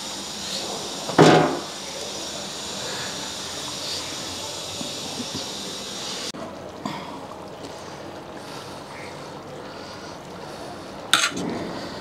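A large metal biryani pot being uncovered after dum cooking: one loud metal knock about a second in over a steady background hiss, then a short sharp scrape near the end. The hiss drops away suddenly around six seconds in.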